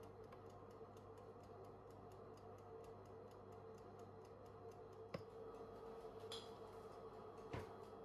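Faint, rapid, even ticking of a Black+Decker toaster oven's mechanical timer dial as the oven runs, over a low steady hum. Two sharper clicks stand out about five and seven and a half seconds in.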